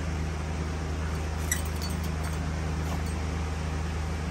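Schnauzer puppies playing tug with a larger dog: faint scuffling and a single sharp click about one and a half seconds in, over a steady low hum.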